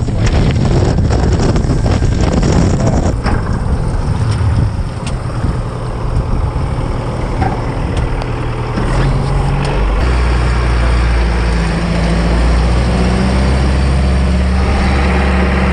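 Rigid inflatable lifeboat's outboard engines running, with wind and water rushing past for the first three seconds. The rush then dies down, and from about ten seconds in the engines settle to a steady low hum, as at idle.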